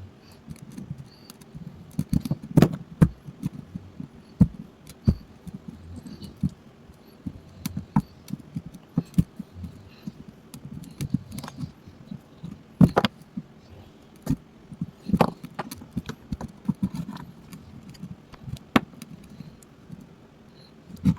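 Irregular clicks, taps and light scraping of small hard objects being handled, with a few sharper knocks now and then.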